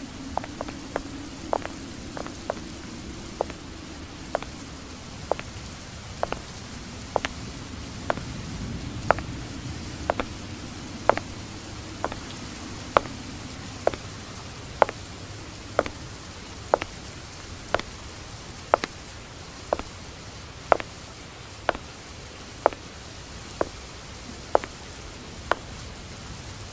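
Sharp, short clicks or taps, a few irregular at first and then settling into a steady beat of about one a second, over a low, hazy background noise that swells and fades in the first half.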